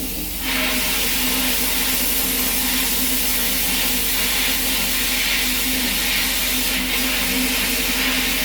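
Abrasive blaster nozzle in a blast cabinet spraying sand in a steady loud hiss, which starts again about half a second in after a brief stop. A steady low hum runs underneath.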